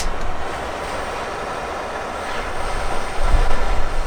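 Steady hissing rush of a gas torch flame, used to melt repair material onto the car's underside, with oil burning off. A sharp click at the very start, and heavy wind buffeting on the microphone about three seconds in.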